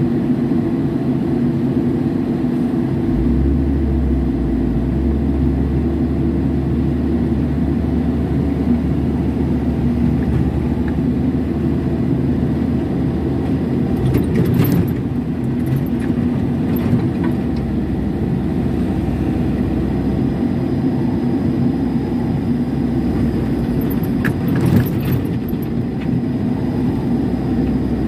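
Mini excavator's diesel engine running steadily under hydraulic work, heard from the operator's cab, with a deeper drone joining about three seconds in. Short knocks come about halfway and again near the end as the bucket works the rubble.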